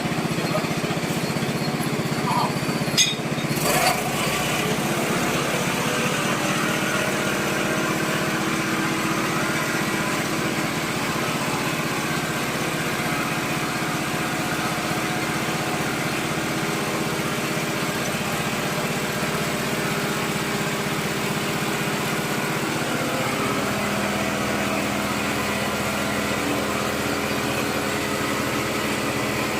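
Small engine of a water-well drilling machine running steadily at a constant speed, with a few brief metallic knocks about three seconds in.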